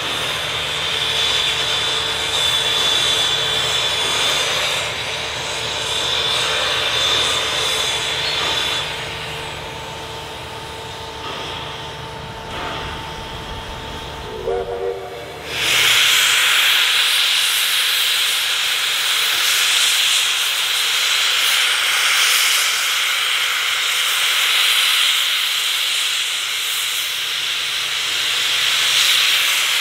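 Hudson steam locomotive R707 hissing steam over a low rumble, with a faint steady hum. About halfway through, after a brief rising tone, a much louder steady rush of escaping steam starts suddenly and keeps going.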